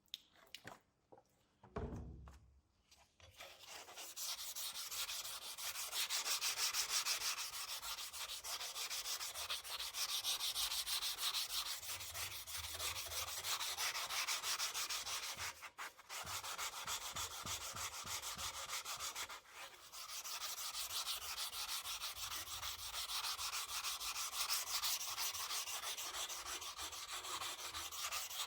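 Sanding of the rusty sword: a steady abrasive rubbing that starts about three or four seconds in after a few light clicks, and pauses briefly twice.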